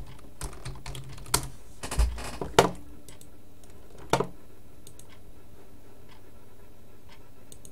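Clicks and taps on a computer keyboard: a quick cluster in the first few seconds and one more a little after four seconds.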